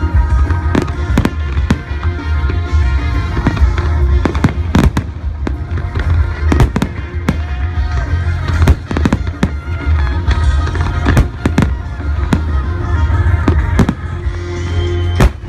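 Fireworks shells bursting in quick, irregular bangs over loud music with a heavy bass.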